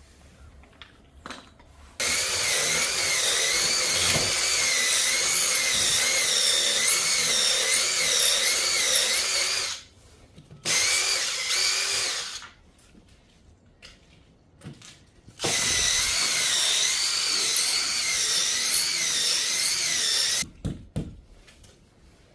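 Power drill boring into a concrete wall in three runs: a long one of about eight seconds, a short one, then one of about five seconds, its motor pitch wavering under load.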